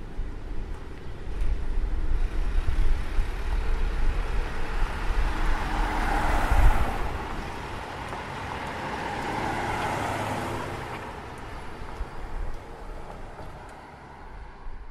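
Street traffic noise with a low rumble, two vehicles passing by: one swells and fades about six seconds in, the other around ten seconds.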